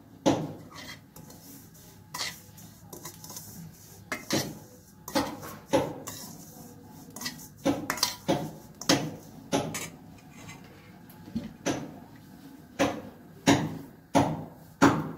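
Metal kitchen utensils clattering: a spoon knocks and scrapes against a cooking pan in repeated sharp strikes at irregular intervals, with two quieter stretches in between.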